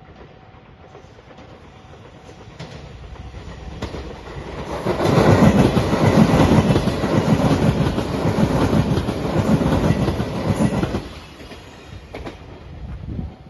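Five-car JR Shikoku Shiokaze limited express train passing: the rumble of its wheels builds over a few seconds, runs loud with a rapid clatter over the rail joints for about six seconds, then drops away sharply about eleven seconds in.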